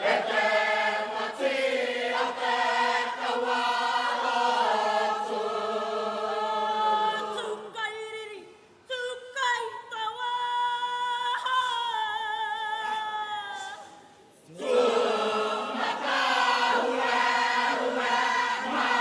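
Kapa haka group of men and women singing in chorus. About halfway through they drop out and a lone female leader's voice carries on, holding wavering notes, before the whole group comes back in loudly.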